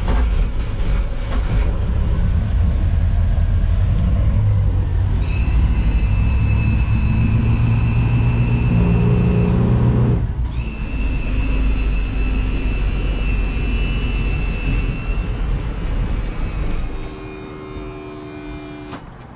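Carburetted 350 V8 MerCruiser sterndrive engine (1989) running at idle, a deep steady rumble, with a steady high whine over it for several seconds at a time. It quietens near the end.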